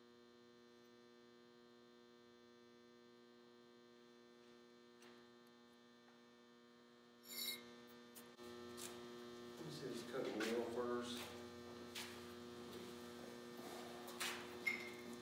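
Steady electrical mains hum. About seven seconds in there is a sharp click, then rustling, scraping and a few sharp knocks as a metal tube and tools are handled.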